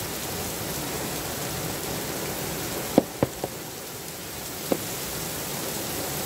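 Heavy rain falling steadily. About three seconds in come three sharp clicks in quick succession and one more over a second later, as the fill plug is taken out of the rear differential housing.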